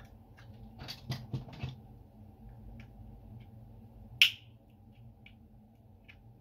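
Plastic clicks and snaps from a BMW remote key's shell being pried open with a knife blade and a small screwdriver. A cluster of clicks comes about a second in, and one sharp, loud snap a little after four seconds, with faint ticks in between.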